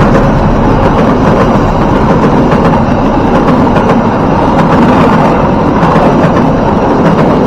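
Argo Parahyangan express passenger coaches rolling past close by at speed: a loud, steady rumble of steel wheels on rail with dense, irregular clattering from the bogies.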